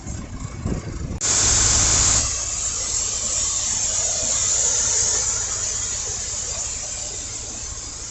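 Machinery running with a low steady hum. About a second in, a loud rushing hiss starts suddenly and then slowly fades.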